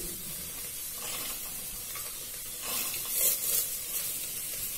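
Spiced banana stem sizzling in oil in an open pressure-cooker pot as red lentils and chickpeas are tipped in. The sizzle surges louder about a second in and again around three seconds in.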